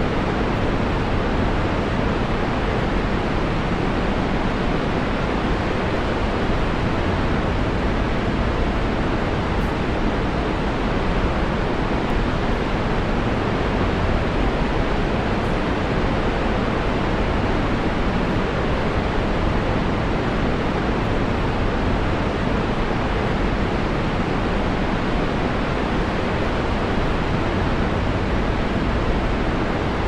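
Steady, unbroken rush of water pouring over Niagara Falls.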